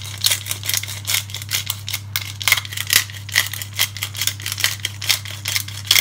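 Hand pepper grinder being twisted, grinding black peppercorns in a quick, irregular run of crunchy clicks, several a second, over a low steady hum.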